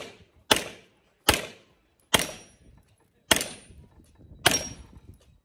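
Pistol shots fired one at a time, five of them about a second apart, each trailing off in a short echo.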